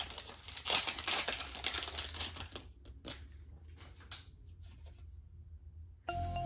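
Foil wrapper of a Pokémon booster pack crinkling as it is pulled open, followed by softer rustling and clicks of cards being handled. Background music with mallet tones starts suddenly near the end.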